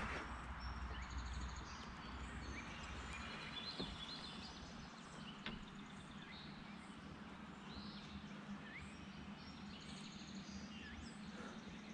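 Faint birdsong: several birds chirping and trilling over quiet background noise, with a couple of light clicks.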